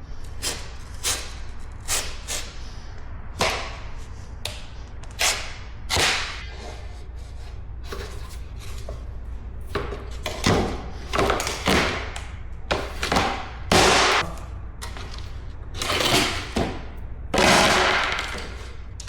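Vinyl flooring plank being cut by hand along a marked line and fitted: a series of irregular short scraping strokes and knocks, with a longer scrape near the end.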